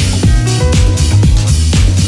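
Electronic deep-house dance music with a steady kick drum at about two beats a second, under sustained bass and synth chords and hi-hats.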